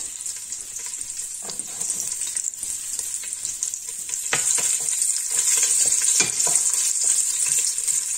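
A piece of pork fat frying in hot vegetable oil in a large pot, a steady sizzle as it renders its fat, with scattered small clicks. The sizzle grows louder about four seconds in.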